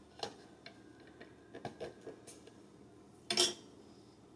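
Small hard plastic clicks and taps as the clear plastic parts of a Funko Invisible Jet toy and its mini figure are handled and fitted together, with one louder clatter about three seconds in.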